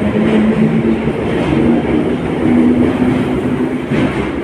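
London Underground train running on its rails: a loud, steady rumble with a low motor hum that shifts in pitch.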